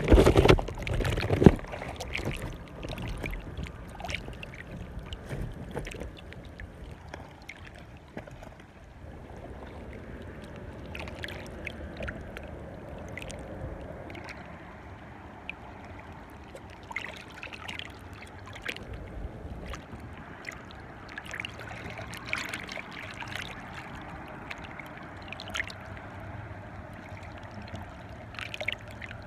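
Small waves lapping and splashing at a beach shoreline, a steady wash of water with scattered short splashes. Loud low rumbles in the first couple of seconds.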